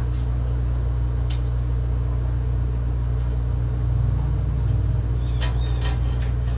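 A steady low mechanical hum runs throughout. Near the end comes a short run of high scraping strokes as a blade scrapes hardened old silicone off the aquarium glass.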